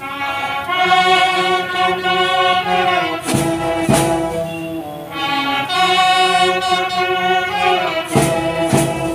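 Military brass band of euphoniums and smaller brass horns playing held chords in phrases, with a few percussion strokes about three seconds in and again near the end.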